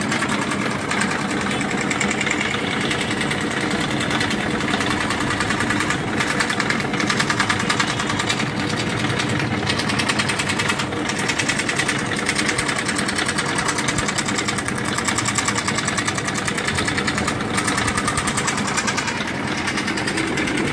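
Bench-mounted scroll saw running steadily, its blade going up and down through a drilled hole as it cuts a round hole in a board, with a fast, even chatter.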